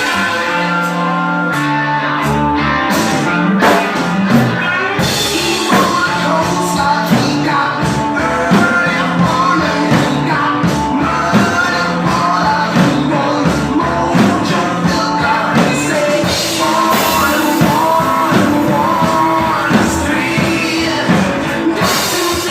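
Rock music: a singer over guitar and drums, playing steadily throughout.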